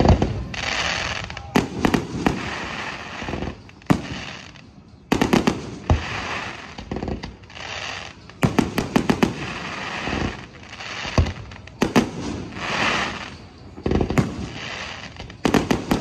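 Aerial fireworks display: clusters of sharp shell bursts every second or two, each followed by a spell of crackling.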